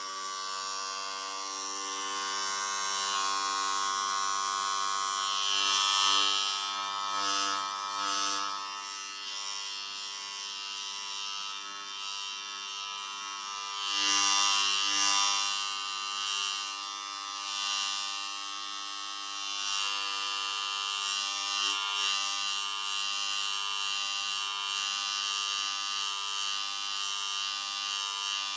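Electric hair clippers buzzing steadily through a haircut, swelling louder a few times, around six seconds in and again about fourteen to fifteen seconds in.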